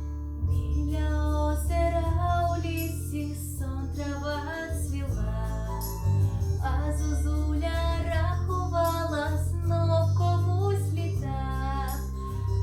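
A teenage girl singing a pop song in Ukrainian over a backing track with a steady bass line; her voice comes in about half a second in.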